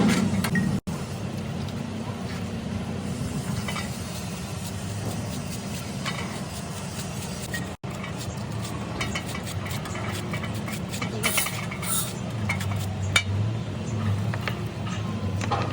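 Steady low workshop hum with scattered light metallic clinks and taps, most of them in the second half.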